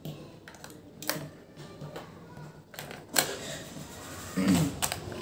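AA batteries being pushed into a plastic toy's battery compartment: a few sharp clicks, the loudest about three seconds in.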